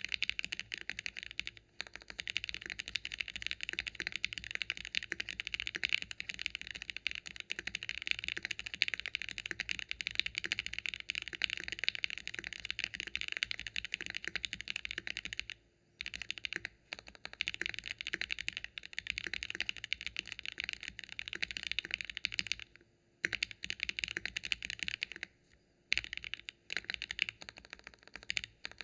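Steady, fast typing on a KBDfans Phase One 65 mechanical keyboard with factory-lubed Gateron Oil King linear switches, an aluminium plate, GMK keycaps and its case foam fitted. The keystrokes run on with a few brief pauses.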